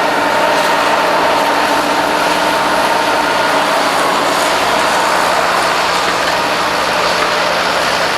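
Heavy harvest machinery running steadily: a constant engine and mechanical drone with several steady whining tones and no change in speed.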